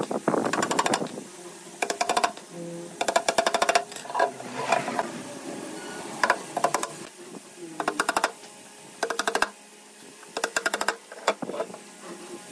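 A hammer driving small nails through a thin laminated panel into a wooden drawer frame. It comes as about ten short runs of quick, sharp taps, roughly a second apart.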